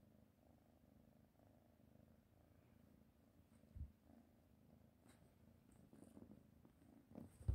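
A kitten purring faintly and steadily while being stroked, with a soft low thump about four seconds in and another near the end.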